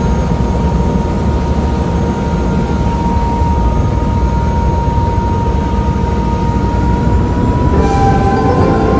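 Airbus EC130 helicopter's turbine engine and rotor running, heard inside the cabin: a loud, steady low rumble with a high whine that rises slightly near the end.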